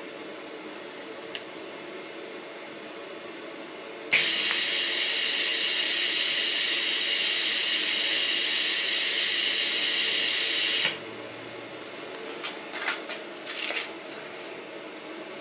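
TIG welding arc held for a long-dwell spot weld on sheet metal: a loud steady hiss that starts suddenly about four seconds in, holds for about seven seconds and cuts off. A few light knocks follow near the end as the plate is handled.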